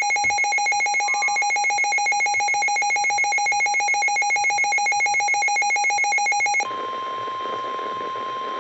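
Emergency alert tones: a loud, rapidly pulsing, trilling electronic alert tone that cuts off abruptly about two-thirds of the way in. It gives way to a single steady tone, the weather radio warning alarm tone that comes before a spoken warning.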